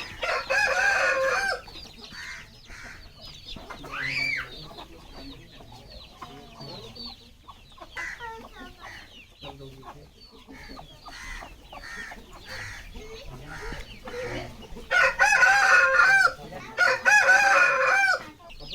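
Aseel chickens: a rooster crows loudly about half a second in and twice more near the end, with quieter clucking and calling between the crows.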